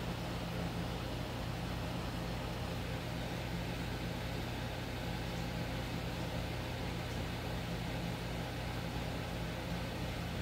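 Steady low hum with an even hiss: a running machine in the background, unchanging throughout.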